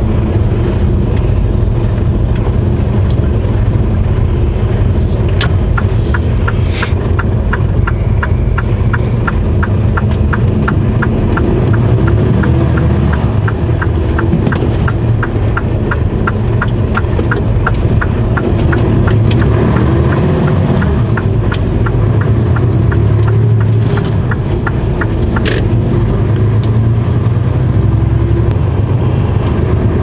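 Truck's diesel engine running steadily under way, heard from inside the cab. About five seconds in, the turn-signal indicator starts ticking evenly, two to three clicks a second, and stops with a click about twenty seconds later.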